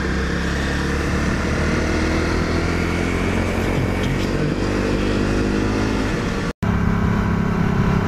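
Motorcycle engine running steadily under way, with wind noise on the helmet camera; its pitch rises somewhat around the middle. Near the end the sound cuts off abruptly for a moment and resumes as another motorcycle, a Can-Am Spyder three-wheeler, running along.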